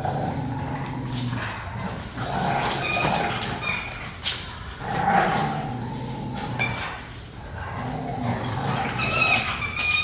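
Pit bulls and a Belgian Malinois growling and snarling in play as they tug and wrestle over a Kong toy, the growls swelling and fading in waves, with a few brief high-pitched notes among them.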